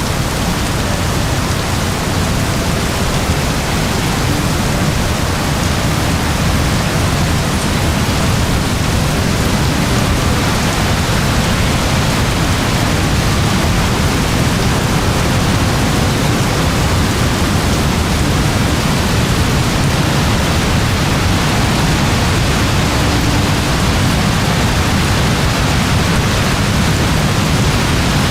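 Very heavy rain falling in a steady, dense downpour, a constant loud hiss with a deep low rumble beneath it.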